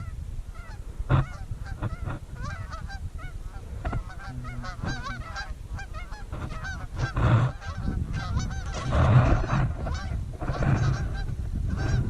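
A flock of geese honking: many short, overlapping honks that grow thicker and louder in the second half, over a low rumble.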